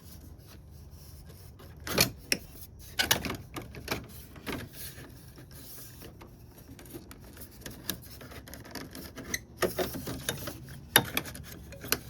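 Plastic front-end trim pieces of a car being handled and pushed into place: irregular clicks and knocks with some rubbing between them, the sharpest click about eleven seconds in.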